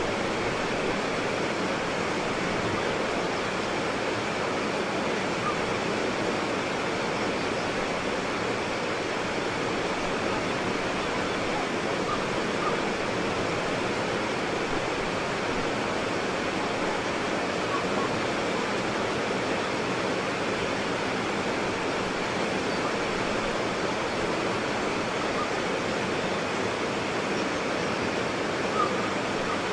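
White water rapids: a steady, unbroken rush of fast water over rocks, with faint splashes and gurgles in it.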